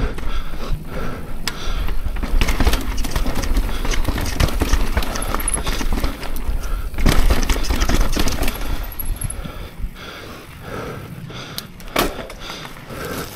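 Mountain bike ridden over a rough, rocky trail: a steady run of knocks and clatter from the tyres and bike over rock and roots, over a low rumble. It eases off for a moment near the end, with one sharp knock.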